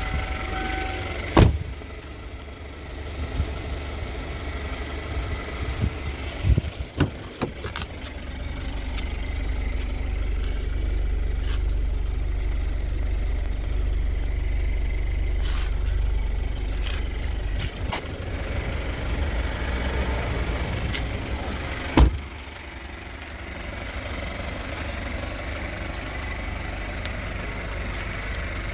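Doors of a 2006 Kia Sportage being opened and shut, heard as a few sharp thumps: one just after the start, a cluster about six to seven seconds in, and the loudest about 22 seconds in. Under them runs a steady low rumble.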